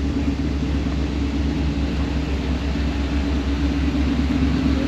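Van engines idling in a line of waiting vehicles: a steady low rumble with a constant hum.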